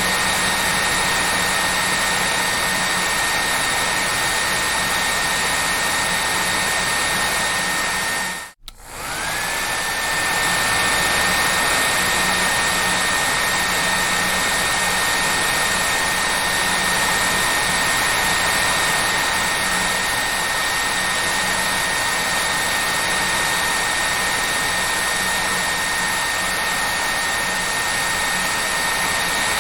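Hair dryer running with a steady whine over its airflow noise. It cuts out about eight seconds in, then comes back, its whine rising as the motor spins back up.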